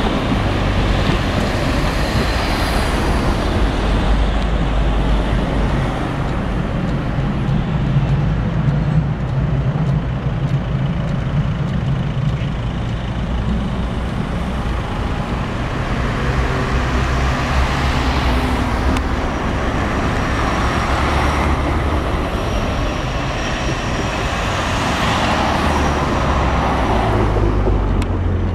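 City street traffic at a road and tram junction: cars, trams and an articulated diesel city bus passing, with a steady rumble of engines and tyres that swells as vehicles go by near the end.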